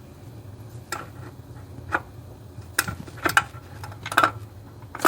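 Sharp metallic clicks and clinks of hand tools and parts as the distributor of a Chevy Vortec 350 V8 is worked on, about six separate strikes, over a low steady hum.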